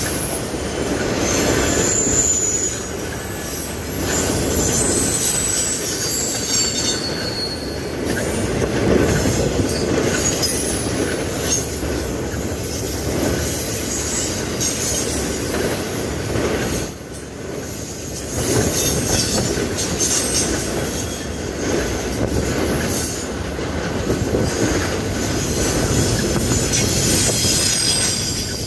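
Freight train cars rolling past at close range: a steady rumble and clatter of wheels on rail, with high, wavering wheel squeal over it. The sound eases briefly a little over halfway through.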